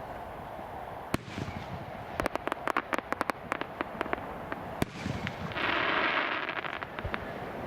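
Fireworks going off: a single sharp bang about a second in, then a quick run of crackling reports, with a short burst of hissing noise near the end.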